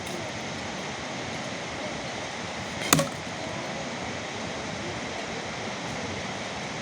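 Steady rain falling, an even hiss throughout. One sharp knock about three seconds in.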